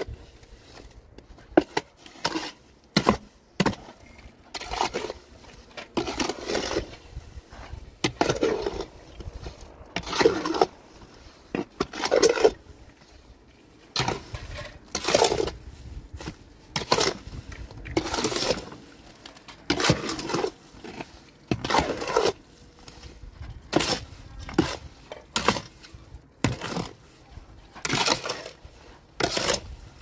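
A steel shovel scraping and slapping through wet cement mortar in a metal wheelbarrow, mixing and scooping it in repeated strokes about every second or two.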